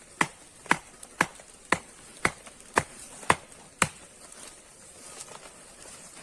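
Chopping wood: eight evenly spaced sharp strikes, about two a second, stopping about four seconds in.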